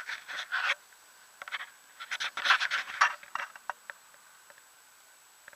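Scratchy rustling and rubbing handling noise on a hand-held action camera, in two bursts: one in the first second and one from about two to three and a half seconds in. After that it fades to faint ticks.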